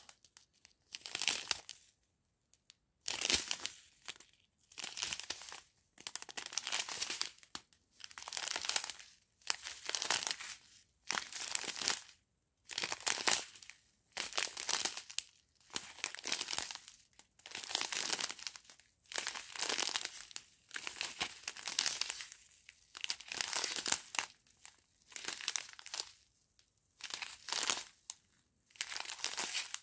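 Small clear plastic sachets of round resin diamond painting drills crinkling as they are picked up and handled in turn, in short bursts about once a second with brief quiet gaps between.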